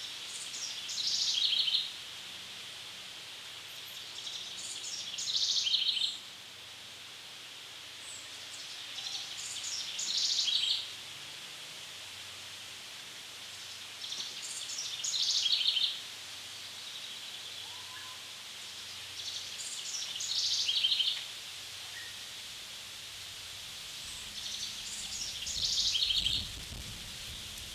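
A songbird sings the same short phrase six times, about every five seconds; each phrase grows louder and then stops abruptly. Under it runs a steady high hiss, and a low rumble comes in near the end.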